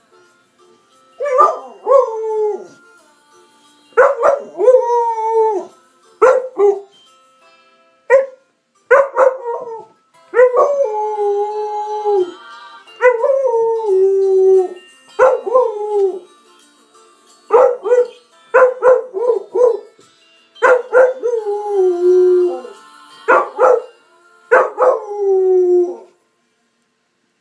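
American Staffordshire terrier howling along to an alarm clock's melody. It gives a string of howls and yelps, most sliding down in pitch, some short and several drawn out for a second or more. The alarm tune plays faintly underneath.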